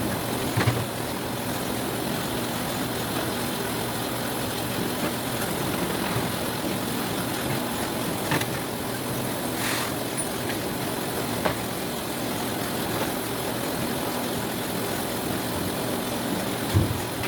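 Citrus-sorting machine running steadily, with a few short knocks scattered through.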